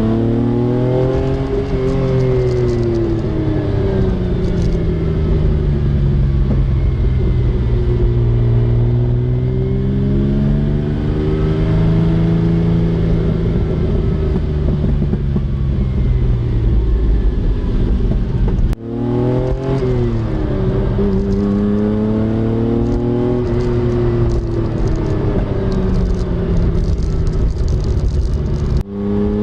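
Lancia Stratos's Ferrari Dino V6 running under way, its pitch climbing and falling slowly over several seconds as it accelerates and eases off. The sound breaks off abruptly twice, about 19 seconds in and again near the end.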